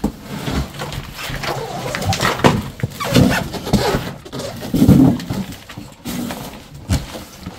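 Large cardboard box being tipped over and shifted on a tiled floor: cardboard scraping, rustling and bumping, with a couple of louder low sounds about three and five seconds in.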